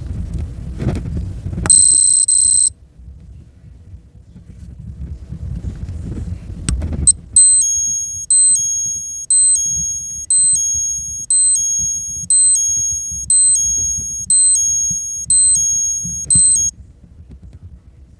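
Seiko quartz chronograph's alarm beeper: a single steady beep about two seconds in, then the alarm sounding in warbling high beeps about once a second for some ten seconds before cutting off. Under it is a low rustle of the watch being handled in gloved fingers.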